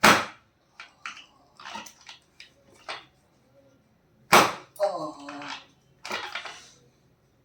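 Two loud, sharp cracks about four and a half seconds apart, with lighter taps between them and a brief voice right after the second crack.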